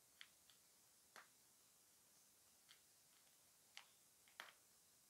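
Near silence with about half a dozen faint, irregular clicks: straight pins being handled as a paper pattern piece is pinned to cloth.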